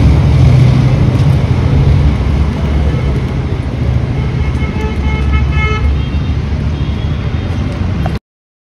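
Wind buffeting the microphone over a steady rumble of street traffic. A vehicle horn sounds about halfway through, and the sound cuts off abruptly near the end.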